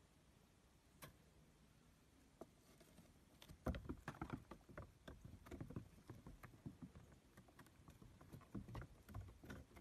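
Baby goats' small hooves tapping and scuffing on wooden boards: irregular knocks and taps that start about three and a half seconds in and go on unevenly, after a faint stretch with a single click about a second in.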